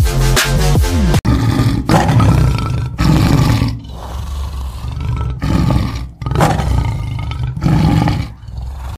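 Electronic music cuts off about a second in, followed by a tiger roaring and growling in a series of rough roars with short breaks between them.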